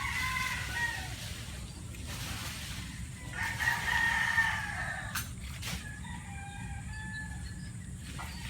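Rooster crowing: one crow ending about a second in, then a second, louder crow from about three to five seconds, followed by fainter short calls.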